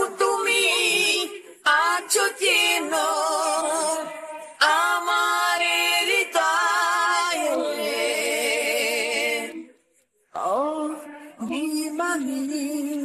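Isolated male lead vocal singing a Bengali ballad with no accompaniment. Held notes are sung high with wide vibrato, in long phrases broken by a short pause about ten seconds in.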